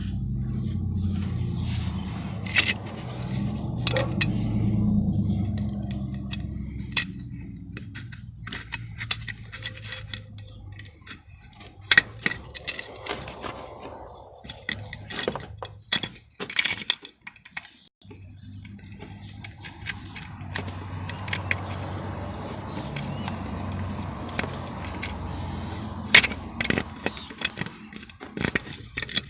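Irregular clicks, taps and scrapes of hand work on a car's fog light assembly, its plastic and metal parts being handled. A low rumble runs under them at the start and again through the second half.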